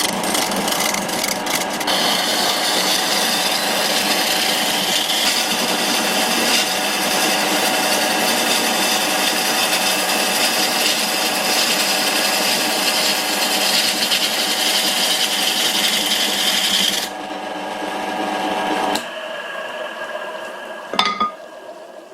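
A homemade bowl gouge cuts a spinning wood spindle on an old Karger lathe, making a steady rasping hiss of shavings over the running lathe's hum. The cutting stops about three-quarters of the way through. The lathe runs on briefly and then winds down, with a couple of small knocks near the end.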